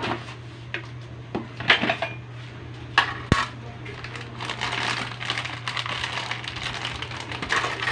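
Kitchen clatter of a container and utensils being handled around a pan of broth: several sharp clinks and knocks in the first few seconds, the sharpest a little after three seconds in, then a continuous rough rustling and scraping over a steady low hum.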